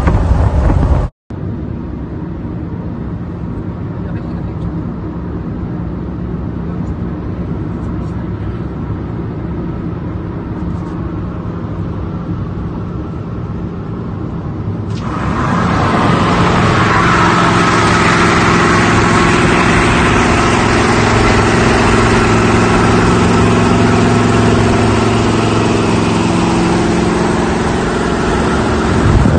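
Highway driving sound heard from a moving car: road and wind noise with the steady drone of a rat rod pickup truck's engine at cruising speed. After a short dropout about a second in, the sound jumps louder near the middle, with a fuller, steady engine drone.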